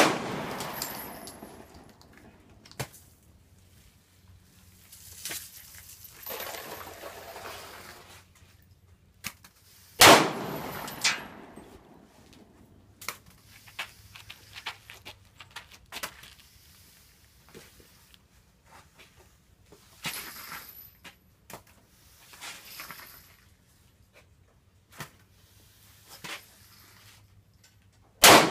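Pistol shots, each followed by a short echo: one right at the start, two about a second apart around ten seconds in, and one near the end. Quieter clicks and pops fall between them.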